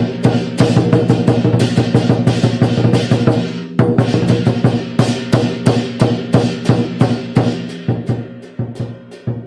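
Lion dance drumming music: rapid, dense drum strikes with crashing percussion. There is a short break just under four seconds in, and the beats grow sparser and quieter near the end.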